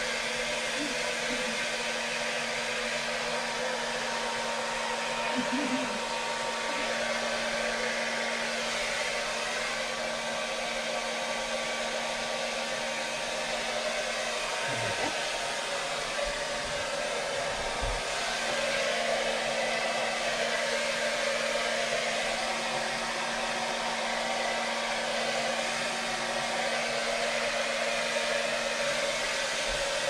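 Hand-held hair dryer blowing steadily on a wet Labrador retriever's coat, a rush of air over a low hum that drops out for several seconds partway through.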